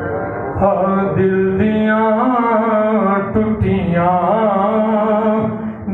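A man singing a naat into a microphone, his amplified voice drawn out in long, wavering melismatic phrases with no words picked out, over a steady low drone.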